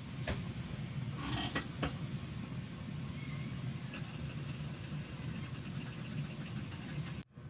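Gas stove burner running under a wide pan of water being heated toward a boil: a steady low rush. A few light clicks and creaks come in the first two seconds.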